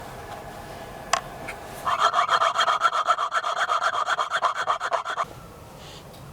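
A hand tool scraping rapidly and evenly on metal for about three seconds, starting about two seconds in, with a brief click a second before.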